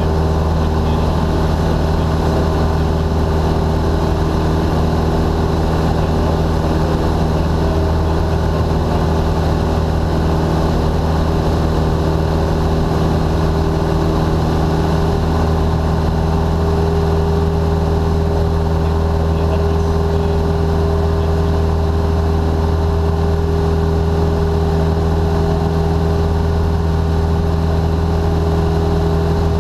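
Single-engine Cessna's piston engine and propeller droning steadily in level flight, heard from inside the cabin.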